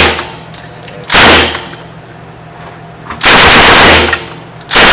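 Thompson submachine gun firing .45 ACP on full auto in short bursts: a brief burst about a second in, a longer burst about three seconds in, and another starting near the end, each a rapid string of loud shots.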